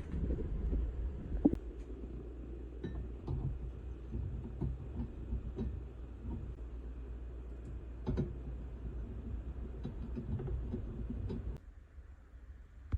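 Kitchen handling sounds: scattered light clinks and knocks of utensils and dishes over a steady low rumble, which stops abruptly near the end.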